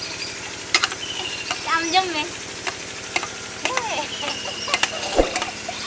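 Hands rubbing and squeezing mango pieces in a steel colander, a scraping, rustling sound with scattered sharp metal clicks.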